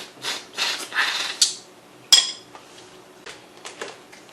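Large freshwater shrimp shells crackling as they are broken and peeled by hand, then a sharp ringing clink on a dish about two seconds in, followed by a few faint clicks.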